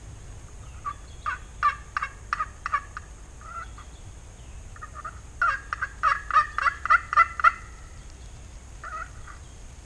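Turkey call worked by a hunter, giving yelps: a run of about six short notes, a pause, then a faster, louder run of about a dozen notes, and a brief pair of notes near the end.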